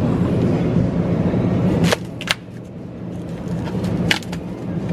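Steady low hum with a few sharp clacks, from foam-and-plastic trays of pork chops being handled in a refrigerated meat case, the last of them about four seconds in.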